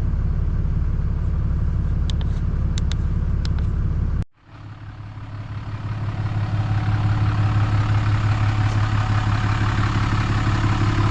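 Pickup truck engine idling steadily, with a few faint clicks about two to three and a half seconds in. Just after four seconds the sound cuts out almost completely, then the idle fades back in and holds.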